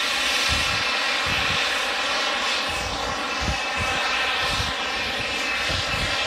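Radio-controlled model J-10 jet flying overhead, its engine giving a steady whine with many even overtones.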